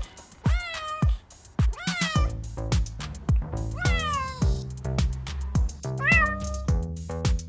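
Electronic music with a steady kick-drum beat and bass, with cat meows over it about four times, each rising then falling in pitch.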